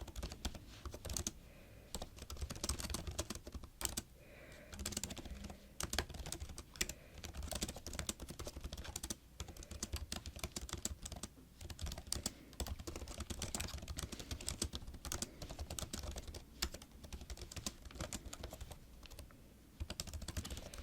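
Typing on a laptop keyboard: quick, uneven runs of key clicks with short pauses between them as words are typed out.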